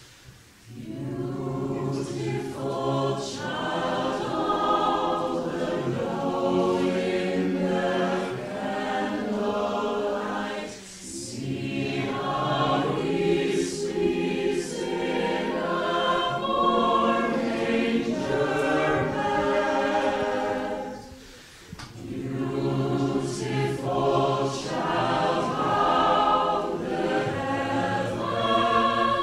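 Mixed choir of men and women singing, starting about a second in, with two short breaks between phrases, near the middle and about three-quarters of the way through.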